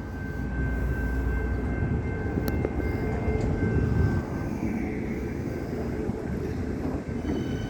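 Electric suburban train running through the station: a low rumble that builds over the first second and is strongest until about four seconds in, then eases, with a thin steady high whine running through it.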